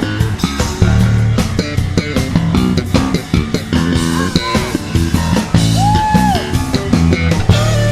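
Jazz-fusion band music: electric bass playing a busy line along with drums and keyboards, with a long held lead note that bends up and falls away about six seconds in.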